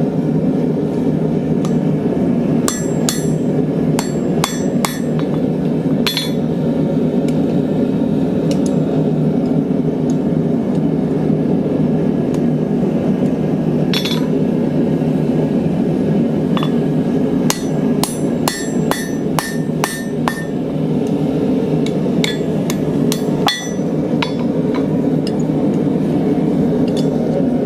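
Hand hammer striking a thin steel vise spacer, straightening it, in scattered bunches of sharp ringing blows with pauses between. A steady low roar runs underneath.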